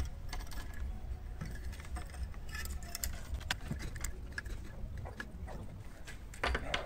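Light metallic clicks and clinks of a wrench on the arbor bolt of a Makita circular saw as a metal-cutting disc is tightened onto the arbor, over a low steady rumble.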